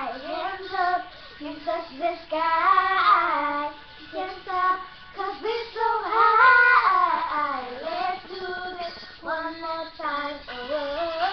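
Young girls' voices singing long, wordless notes that rise and fall, along to a pop song.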